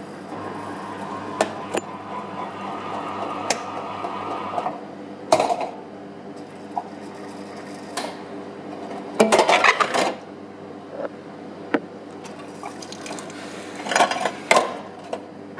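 Retro tempura-udon vending machine working through its cooking cycle. A steady mechanical hum stops about five seconds in and is followed by a knock. A rattling clatter comes around ten seconds in, and more clattering near the end as the hot plastic bowl of udon is taken from the hatch.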